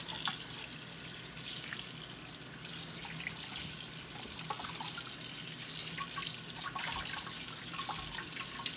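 Kitchen faucet running into a bowl in the sink while hands rub and swish soaked pig feet and pig ears to rinse them, with scattered small splashes.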